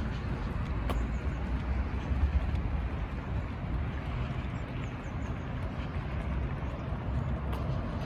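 Suburban street ambience: a steady, uneven low rumble, with a few faint bird chirps high above it, once about a second in and again around the middle.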